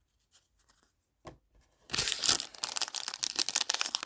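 Trading card pack's foil wrapper being torn open and crinkled. The crackling tearing starts suddenly about two seconds in, after a near-quiet stretch with a few faint clicks of cards being handled.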